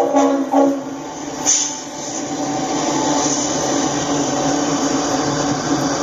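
Norfolk Southern pusher diesel locomotives: the last of a horn sounding in two short blasts that end under a second in, then the steady noise of the locomotives running, with a brief hiss about a second and a half in.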